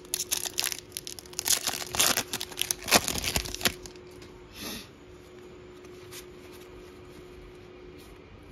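Foil trading-card pack wrapper being torn open and crinkled by hand: a dense run of sharp crackles for about four seconds, then a faint steady hum.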